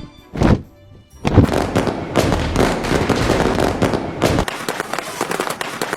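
A single thump, then a dense crackling that thins to a lighter, sparser crackle near the end.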